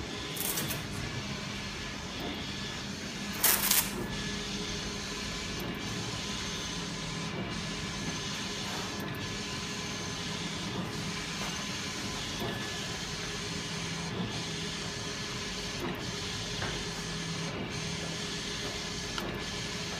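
Flatbed digital printer running, with a steady motor whir and a regular change about every 1.7 seconds as the printhead carriage sweeps back and forth across the bed. A brief loud rush of noise comes about three and a half seconds in.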